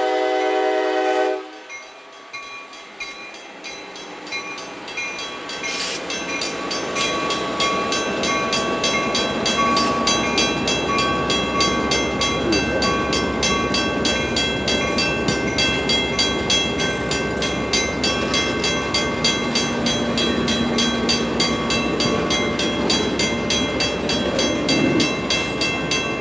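A passenger train's horn ends about a second and a half in. Then the passing train's cars roll by with a steady, rhythmic clatter of wheels over rail joints, growing louder over the first several seconds.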